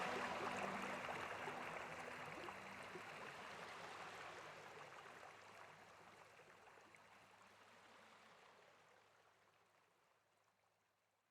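Running water, like a stream, as an even rushing noise that fades out steadily to near silence. The last of a soft background music fades under it in the first two seconds.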